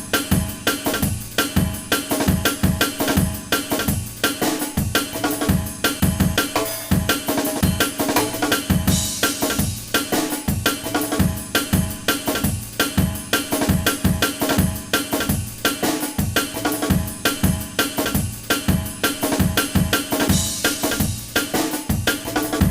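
Instrumental music with a steady drum-kit beat: bass drum, snare and cymbals under sustained pitched instruments.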